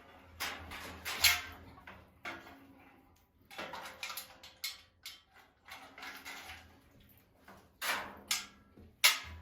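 Irregular knocks and clatter of hard objects being handled and set down, with the sharpest knocks about a second in and near the end.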